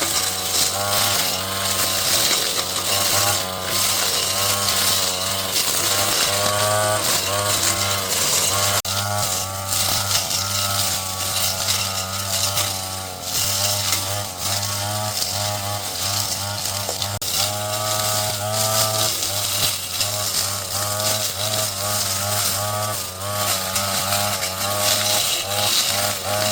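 Small petrol engine of a garden power tool running continuously, its revs rising and falling again and again as it cuts.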